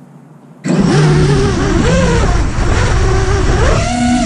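FPV quadcopter's soft-mounted brushless motors and propellers spinning up about a second in, then whining loudly with the pitch rising and falling as the throttle changes.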